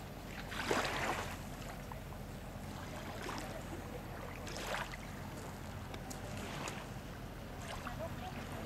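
Small waves lapping against shoreline rocks, with a few brief soft splashes over a steady low background rumble.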